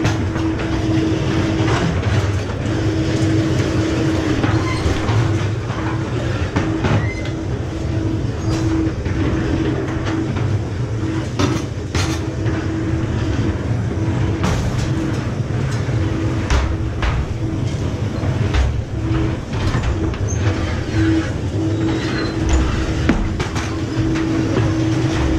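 Ghost-train ride car running along its track: a steady rumble with scattered clicks and knocks, and a humming tone that cuts in and out throughout.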